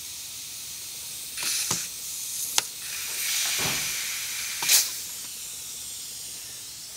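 Air-powered valve spring compressor working on a Pontiac 455 cylinder head: a steady hiss of compressed air, with short rushes of air as the tool compresses and releases a valve spring. Sharp metal clicks as the spring retainer and keepers seat, the loudest about two-thirds of the way in.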